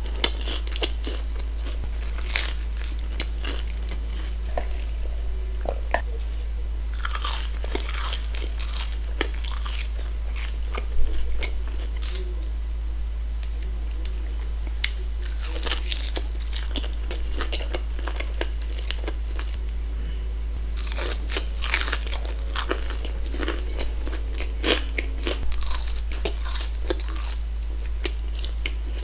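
A person biting and chewing fried chicken fingers, toasted bread and crinkle-cut fries, with crunchy bites coming in clusters every few seconds, the loudest about eleven seconds in, over a steady low hum.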